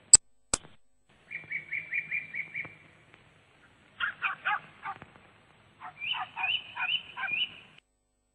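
Two sharp clicks, then three bursts of short, quickly repeated high-pitched animal calls.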